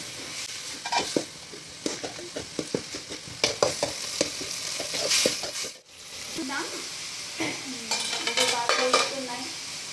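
A metal spoon stirring chopped tomatoes frying in a steel kadai, clinking and scraping against the pan over a steady sizzle. The clinks come thickly in the first five seconds or so, with a brief drop in sound a little before the middle.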